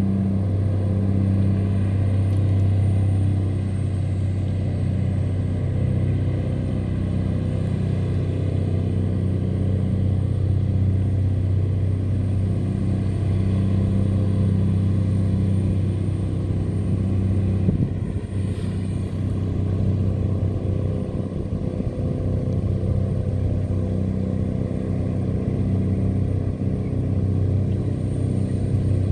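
Diesel engines of river tugboats running steadily under load as they tow cargo barges, a deep, even drone.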